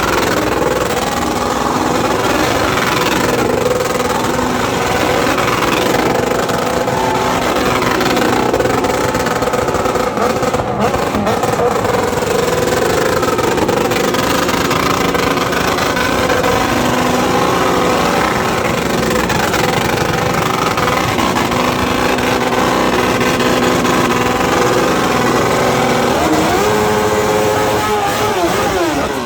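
Several motorcycle engines running and revving together, their pitch rising and falling, with one engine note sweeping up and then falling sharply near the end.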